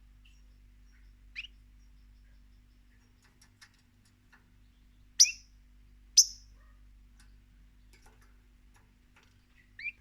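European goldfinch giving four short, sharp calls: one about a second and a half in, two much louder ones about a second apart in the middle, and one near the end. Faint ticks fall between them.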